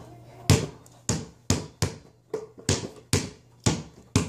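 Basketball being dribbled by hand, about nine sharp bounces at roughly two a second in an uneven rhythm.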